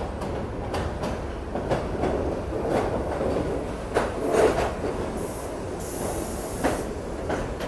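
R68 subway train pulling into the station: a steady rumble with a few sharp clattering knocks from the wheels. A high-pitched wheel squeal sets in about five seconds in and lasts a second or two.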